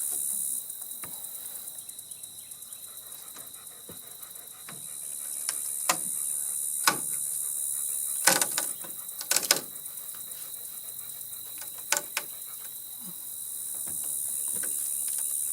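Steady high-pitched insect chorus with a thin steady tone in it. A handful of sharp knocks and clicks are scattered through the middle.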